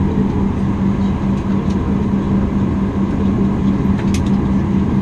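Cabin noise of a Boeing 737 MAX 8 on the ground after landing: a steady rumble with a constant low hum, and a faint click about four seconds in.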